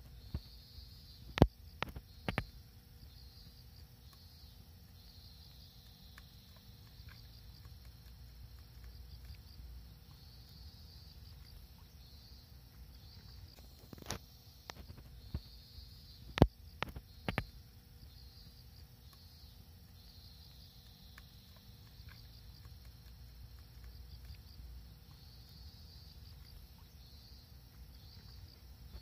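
Insects, crickets or similar, chirring faintly and steadily in repeated high-pitched phrases over a low rumble. A few sharp clicks break in: two in the first few seconds and three more around the middle, and these are the loudest sounds.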